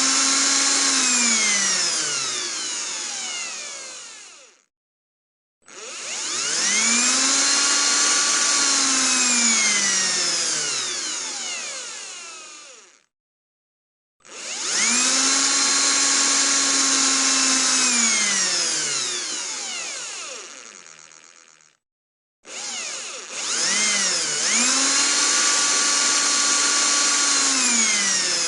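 Electric drill run four times, each for about six to seven seconds with a second of silence between. Each time the motor whines up to speed, holds steady, then winds down in falling pitch as the trigger is let go. The last run starts with a brief stutter before spinning up fully.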